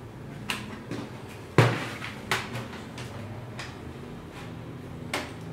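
Plastic laptop case and parts being handled: a few sharp clicks and one heavier knock about a second and a half in.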